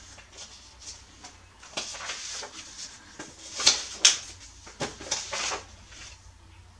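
Sheets of paper being shuffled and swapped on a desk: a string of rustles and flaps, the loudest a pair of sharp flaps about halfway through.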